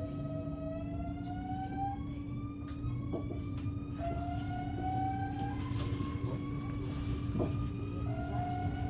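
NS ICNG electric train's traction inverters whining while accelerating: a pitched whine that climbs, drops back and climbs again about every two seconds, over a steady low hum.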